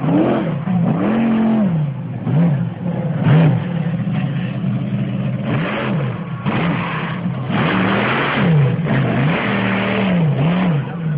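Monster truck engine revving up and down over and over as the truck drives. Louder bursts of noise come in the middle as it wheelies over a row of crushed cars.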